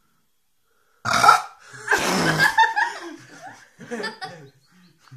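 A person belching loudly about a second in, a forced burp brought up by gulping cola. Short bursts of laughter follow.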